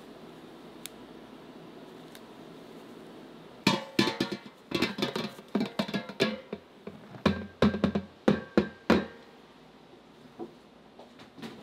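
Plastic container knocking and scraping against a stainless steel mixing bowl as flour is shaken out into it: a quick run of sharp knocks of uneven loudness, some leaving the bowl ringing briefly. It begins about four seconds in after a steady low hum and stops about nine seconds in.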